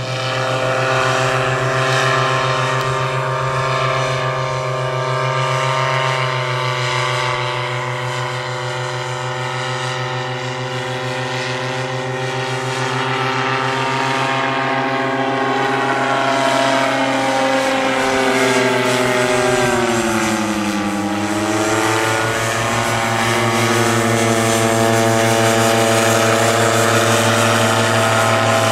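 Paratrike's engine and propeller running steadily in flight overhead, its pitch dipping and then rising again about twenty seconds in.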